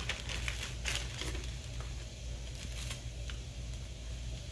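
Clear plastic packaging crinkling and rustling as it is handled and an item is pulled out, in scattered short crackles that are densest in the first second, over a steady low hum.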